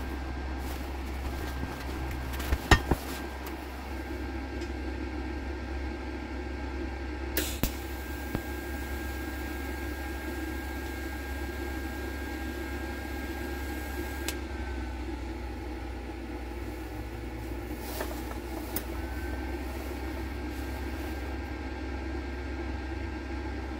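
TIG welding tack: a sharp click as the arc strikes about seven seconds in, then a thin steady tone with hiss for about seven seconds that glides down as it stops. A steady machine hum runs underneath, with a few short clicks and a second brief tone later on.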